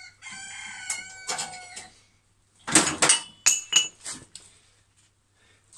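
Steel blacksmith tongs clanking against each other in a tool rack as they are handled. The first clash leaves several metallic ringing tones hanging for nearly two seconds, and a run of sharper clangs and clinks follows about three seconds in.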